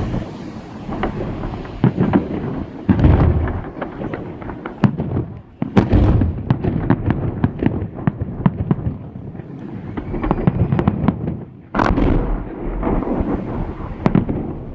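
Fireworks salute: aerial shells going off in an irregular string of loud bangs with rumbling echoes and crackle between them. The loudest bangs come about six seconds in and again about twelve seconds in.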